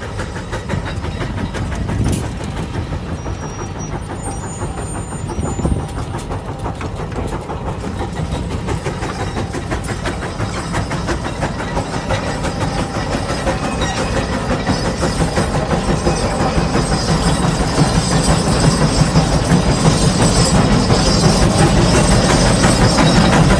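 Case 150 steam traction engine running under load, its exhaust beating in a fast, steady rhythm while it pulls a 36-bottom plow; it grows louder over the second half.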